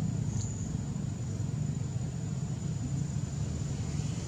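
Steady low rumble of an idling engine with no breaks, and a thin, steady high-pitched whine above it.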